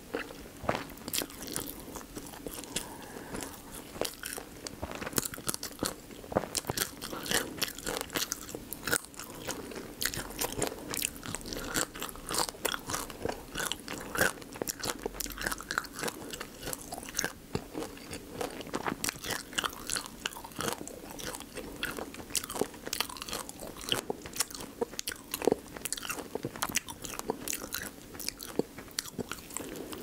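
Close-miked chewing and biting on raw spicy marinated crab (yangnyeom gejang), its soft shell cracking between the teeth in many small, irregular crunches and wet clicks.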